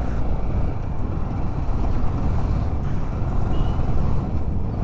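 Onboard sound of a Yamaha sport motorcycle being ridden: the engine runs steadily under a low wind rumble on the microphone.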